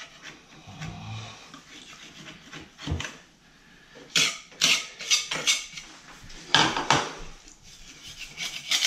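Metal scraper knife scraping and chipping out crumbling, water-soaked drywall: a run of short, gritty scrapes, fainter at first, then several loud strokes from about four seconds in.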